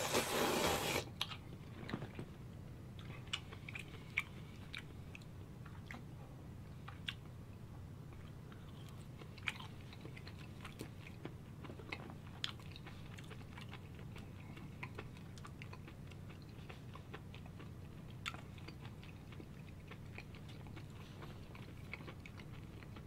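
A person slurping jjamppong noodles loudly for about the first second, then chewing, with scattered small wet mouth clicks.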